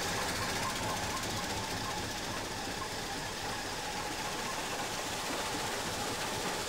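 Jaw crusher running with rock and soil being fed into its crushing chamber: a steady mechanical noise with a faint whine.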